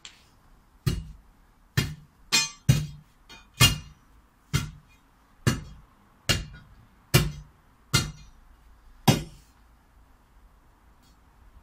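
A long steel digging bar is driven down again and again, about a dozen sharp clanks roughly a second apart, breaking out the concrete around an old fence post's footing. The strikes stop about nine seconds in.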